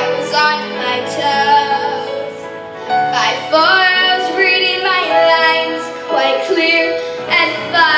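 A girl singing a musical-theatre song into a handheld microphone over instrumental accompaniment with held notes and a low bass line.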